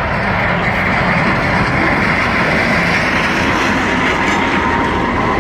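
Freight train rolling past at speed: a loud, steady rush of wheels and cars on the rails.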